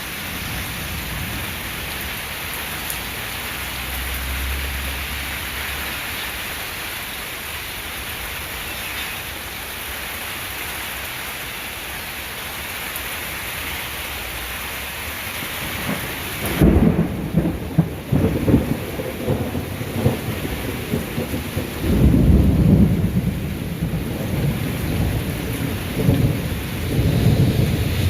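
Steady heavy rain with a faint low thunder rumble a few seconds in. About two-thirds of the way through, the sound shifts abruptly to loud, rolling, irregular thunder rumbles that carry on to the end.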